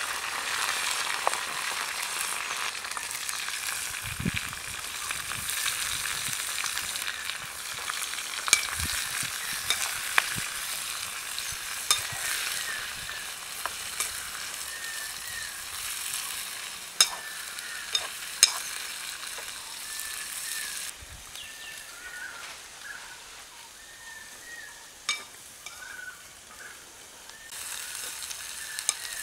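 Prawns sizzling as they fry in hot oil in a small pan over a wood fire, with a metal spoon stirring and now and then clinking sharply against the pan. The sizzle quietens for a few seconds near the end, then picks up again.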